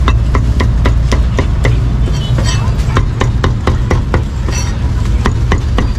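Meat cleaver chopping meat on a chopping block: quick, evenly spaced knocks, about four a second, over a steady low traffic rumble.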